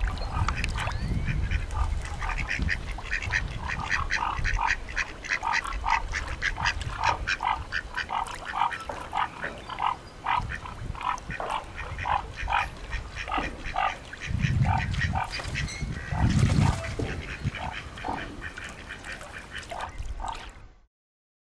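Duck quacking in a long, even series of calls, about three a second, with low rumbles of wind on the microphone, stronger twice past the middle.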